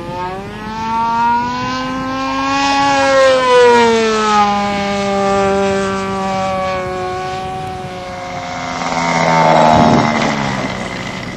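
Engine of a Champion 40 radio-controlled model airplane running in flight. Its pitch falls as the plane passes about four seconds in, and it swells to its loudest as the plane comes by low and close near the end.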